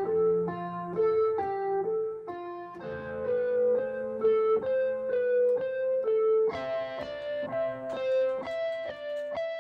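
Roland SK-88Pro Sound Canvas keyboard playing a slow melody, one note about every half second, over held lower notes; the music grows fuller about two-thirds of the way through.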